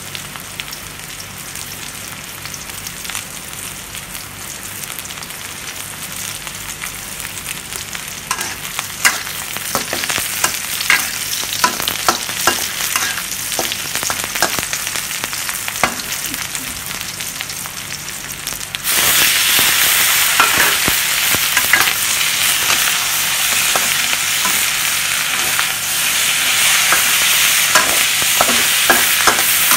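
Sliced onion and garlic sizzling in oil in a wok, with a spatula scraping and clicking against the pan. About two-thirds of the way through the sizzle jumps suddenly louder as pieces of pork go into the hot wok, and the stirring goes on.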